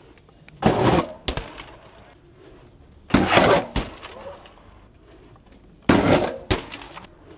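Three loud crashing impacts about two and a half seconds apart, each followed about half a second later by a smaller knock.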